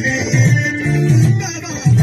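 Loud Eritrean dance music with a plucked-string lead over a steady low beat of about two pulses a second.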